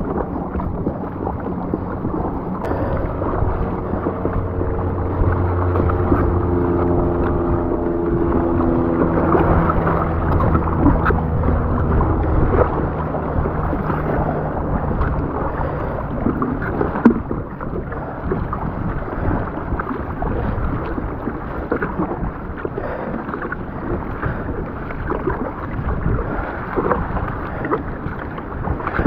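Wind buffeting the microphone over water sloshing and splashing around a surfski paddled on rough open sea. A low steady hum runs underneath for about the first half.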